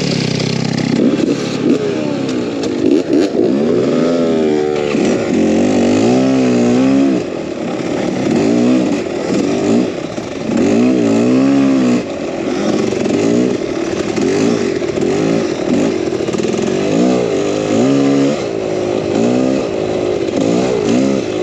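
Dirt bike engine riding a trail, its pitch rising and falling again and again as the throttle opens and closes.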